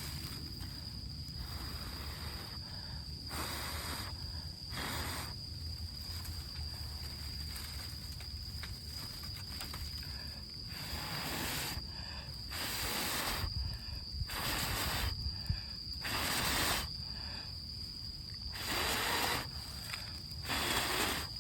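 Person blowing in repeated puffs onto the smouldering embers of a campfire built from rain-soaked wood, trying to keep the fire alive. Each breath is a hiss of about a second, coming irregularly, longer and louder in the second half.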